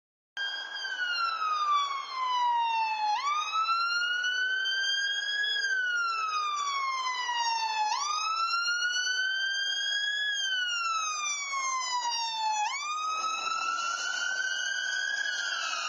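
Ambulance siren wailing, its pitch sweeping slowly up and down in cycles of about five seconds as the ambulance drives up and passes, with road noise as it goes by near the end. As it passes, the pitch drops slightly (Doppler shift), from roughly 800 to 750 hertz.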